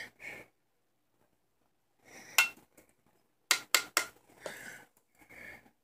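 Makeup brush and highlighter compact being handled: one sharp click, then three quick hard plastic clicks and taps about three and a half seconds in, with short soft brushing sounds between them as the brush picks up the powder.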